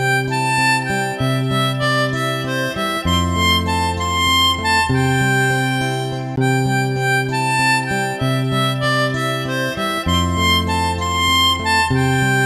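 Background music led by a harmonica-like melody over a steady bass, with sustained notes that change every second or so.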